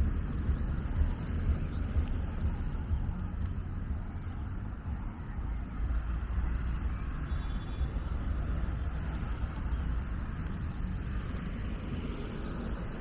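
Outdoor ambience: a steady low rumble with a light hiss over it.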